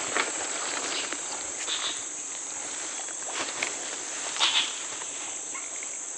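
Steady high-pitched insect chorus of the swamp forest, with a few brief rustles and knocks from close by; the loudest comes about four and a half seconds in.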